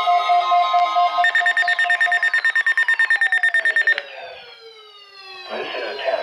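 NOAA Weather Radio test alert signal: steady electronic tones with falling pitch glides, turning into a rapid pulsed beeping about a second in. The beeping cuts off abruptly at about four seconds, and a short burst of hiss follows near the end.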